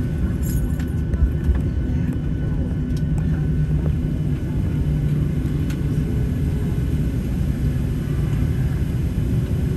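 Cabin noise of a Boeing 737-700 taxiing: a steady low rumble and hum from its CFM56 turbofans at idle, with a couple of light clicks about a second in.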